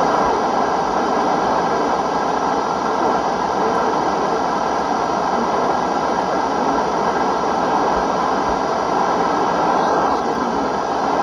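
Steady radio static: an even hiss from a noisy or weak radio channel with no clear speech coming through.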